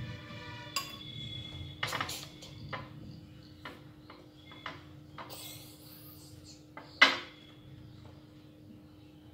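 A metal fork clinking against a glass bowl while noodles are stirred: scattered light clinks, with one sharper clink about seven seconds in.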